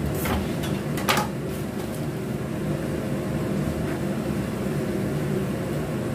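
Steady low kitchen hum and rumble with a faint steady tone in it, and two short clicks within the first second or so.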